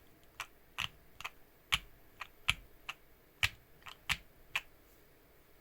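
Keystrokes on a Bakeneko60 mechanical keyboard with lubed Banana Split linear switches: about a dozen single, unhurried key presses, each a short clack, stopping about a second before the end.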